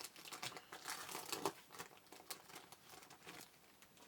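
Trading-card pack wrapper crinkling as it is handled and pulled open, a dense run of small crackles that thins out near the end.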